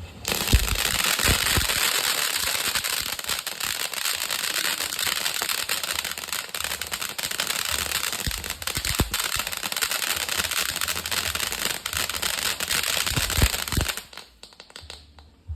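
Firework crackling densely for about fourteen seconds, with a few louder pops mixed in, then stopping abruptly.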